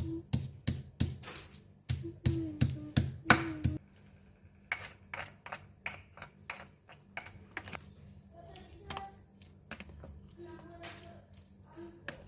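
Repeated sharp taps and knocks of kitchen utensils, about two or three a second: loud for the first four seconds, then softer and more irregular.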